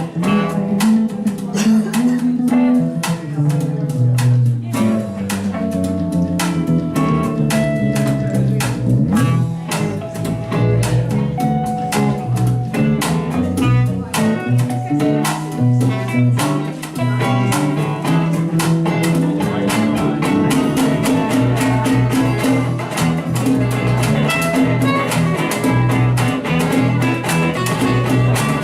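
Band music with guitar over a steady percussive beat.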